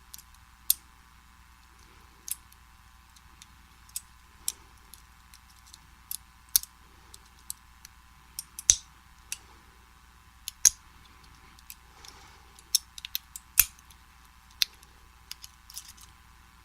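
Irregular sharp metallic clicks and light scrapes of a hook pick and tension wrench working inside a vintage Slaymaker Super padlock, lifting the pins one at a time during single pin picking. A few clicks stand out louder than the rest.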